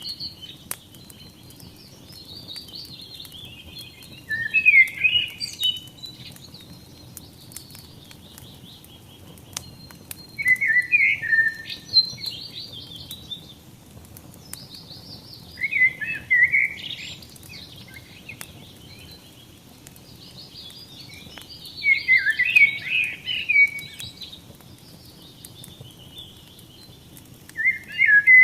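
A songbird sings short chirping phrases about every six seconds over a wood fire crackling with scattered sharp pops and a low steady rush of flame.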